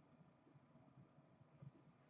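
Near silence: room tone, with one faint click about a second and a half in.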